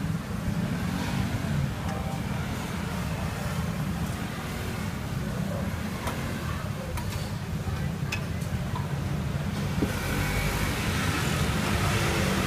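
Night-market food stall ambience: a steady low rumble with faint voices and a few light clinks of dishes, and a hiss that grows louder from about ten seconds in.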